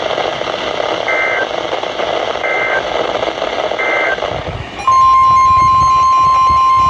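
Three short warbling data bursts of an Emergency Alert System end-of-message signal, about 1.4 s apart, over radio static. About five seconds in, a single steady alert tone starts suddenly and is loud, like a NOAA Weather Radio warning alarm announcing the next alert.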